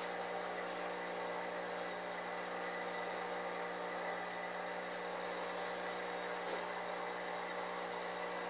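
Steady hum of a small motor, unchanging in pitch.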